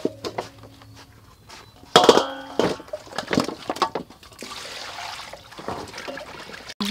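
A steel tray clanks and rings against a steel bowl as raw chicken legs are tipped into it, with a few smaller knocks after. Then water splashes and sloshes as the chicken is washed by hand in the bowl.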